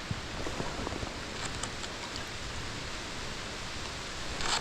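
Steady hiss of rain falling on a flowing creek, with a few faint drop ticks and a brief louder splash or rustle just before the end.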